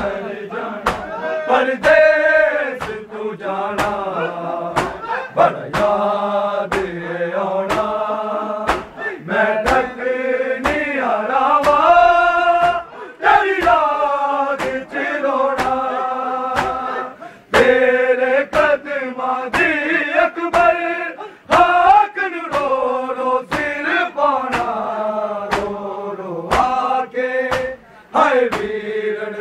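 A group of men chanting a Punjabi noha (Shia mourning lament) together, with a steady beat of sharp slaps from hands striking bare chests in matam.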